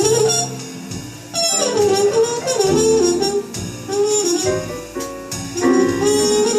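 Live jazz group playing, with a horn soloing a winding melodic line over piano, bass and drums.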